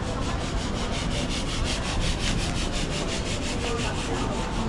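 Rhythmic scraping or rasping, about six strokes a second, over the low rumble of a busy street.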